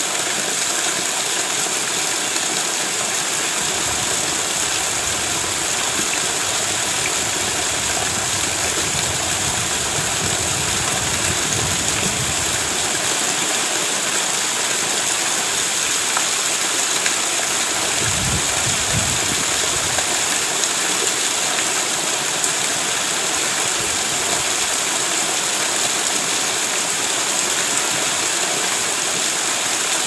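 Steady rain falling, an even hiss of many drops. A low rumble swells underneath it twice, for several seconds in the first half and briefly again after the middle.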